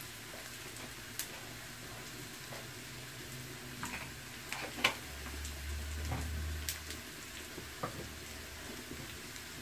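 Onions, dried red chillies and dals frying in ghee in a pan, a soft steady sizzle with a few scattered sharp clicks.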